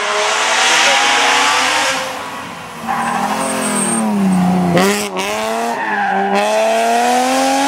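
BMW E36 rally car at full stage pace. The engine note drops as it slows for a bend, breaks sharply just before five seconds in, then climbs steadily as it accelerates away.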